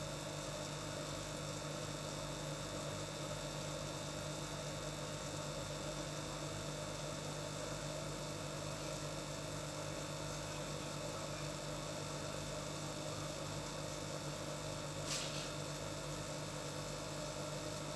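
Steady low electrical hum over an even hiss, with one brief click about fifteen seconds in.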